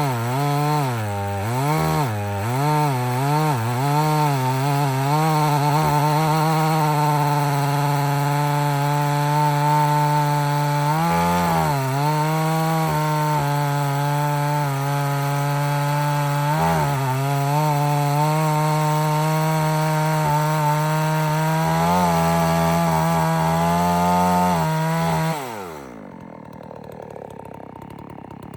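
Gasoline-engine saw running steadily while cutting wood, its engine speed wavering and dipping several times under load. About 25 seconds in it is shut off and the pitch falls away, leaving a fainter sound as it winds down.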